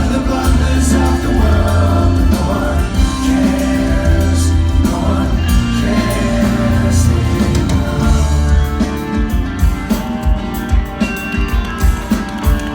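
Live progressive rock band playing a song, with singing over bass, guitars and drums. A regular drum beat comes to the fore about nine seconds in.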